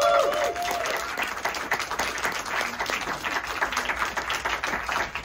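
Audience applauding, a dense patter of many hands clapping, with a long held voice ringing out over the first second.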